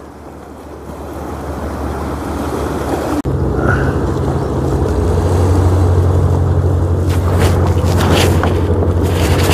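A boat's engine droning low and steady, swelling louder over the first few seconds and then holding.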